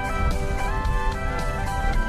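Background music: an instrumental guitar passage of a Tagalog pop song, with sustained notes over a steady beat.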